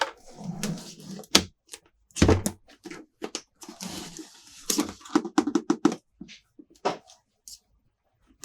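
Plastic toy playset pieces being handled and set down: a string of irregular clicks and taps, with short bouts of packaging rustling and a quick rattle of small clicks about five seconds in.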